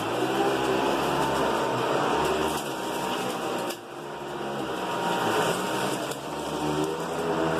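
Hoover Decade 80 upright vacuum cleaner running on its high setting with a new brush roll, a steady motor hum whose pitch wavers slightly. The level dips briefly a little before halfway through.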